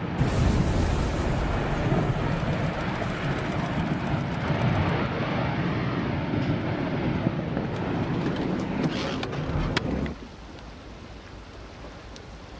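Floodwater rushing in a swollen river: a loud, steady rushing noise heavy in the low end, which cuts off suddenly about ten seconds in, leaving a much quieter hiss.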